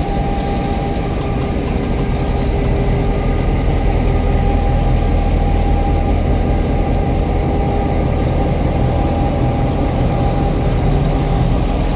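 Diesel-electric locomotives passing close by on the track, their engines running with a steady loud drone over the rumble of wheels on the rails.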